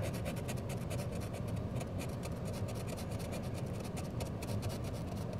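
Scratch-off lottery ticket being scraped with a pen-like tool: a steady run of quick, rasping scratch strokes as the coating comes off.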